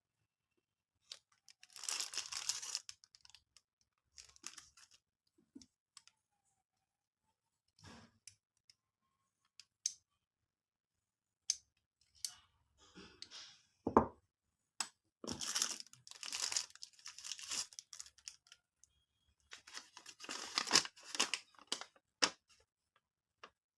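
Packaging being unwrapped: bursts of crinkling and tearing with short pauses between them, scattered small clicks, and one sharp knock about halfway through that is the loudest sound.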